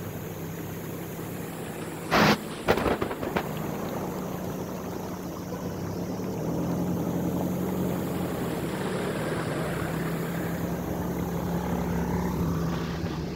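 Vehicle engine running with a steady hum while driving slowly through shallow floodwater, over a wash of water and tyre noise. A cluster of loud knocks comes about two to three seconds in.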